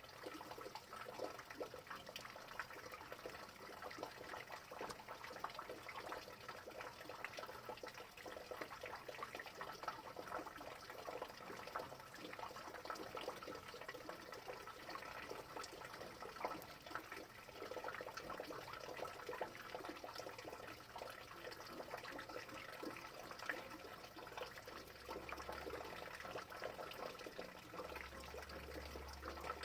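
Rain falling steadily, a dense, even patter of many small drops with no let-up.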